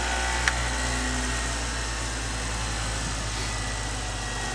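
Steady low mechanical hum with a single sharp click about half a second in.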